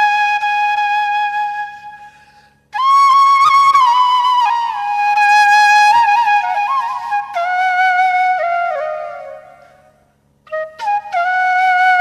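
Background music: a solo flute melody of long held notes with bends and ornaments. It fades out about two seconds in and again near the end, and a new phrase starts each time.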